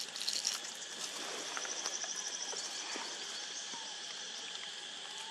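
Forest ambience: a steady high insect drone, joined for about a second near the middle by a rapid pulsing trill of about ten beats a second, with a few faint bird whistles.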